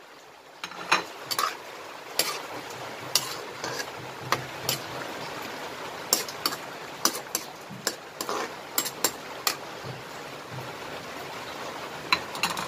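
Metal ladle stirring vegetables in a wok, clinking and scraping against the pan at irregular moments, over a steady low hiss of the simmering broth.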